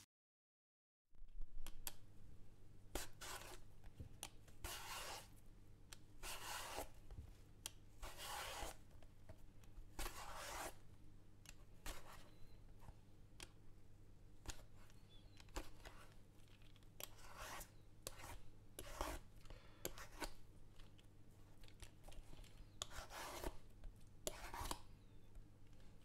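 Vegetable peeler scraping along an eggplant's skin, strips of peel tearing away in short strokes, one every second or two, starting about a second in. A faint steady low hum runs underneath.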